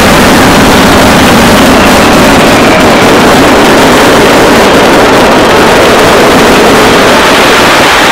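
Fireworks finale barrage: so many aerial shells bursting at once that the bangs merge into one loud, unbroken rumble.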